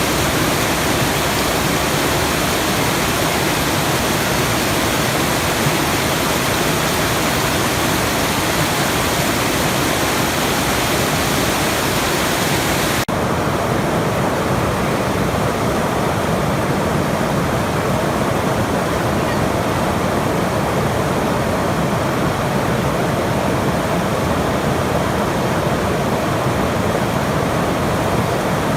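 Steady rushing noise of falling water from a sleep-sounds track. About halfway through it cuts suddenly to a duller rush with the high hiss gone.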